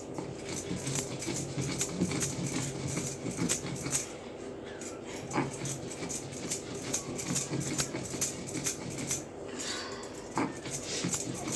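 Dry ginger being ground by hand on a flat grinding stone with a stone roller: quick, repeated gritty scraping strokes, several a second.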